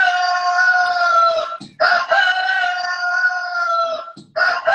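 A man's voice holding long, high, steady falsetto notes, each about two seconds, with short breaks between, like a rooster crowing. One note ends early on, a second runs through the middle and a third begins near the end.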